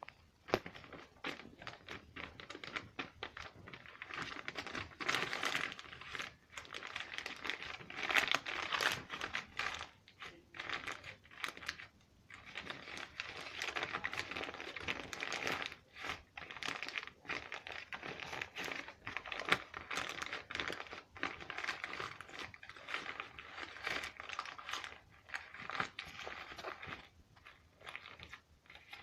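Fingers poking and squeezing an object close to the microphone, giving a dense run of crinkly, crackling clicks with short pauses.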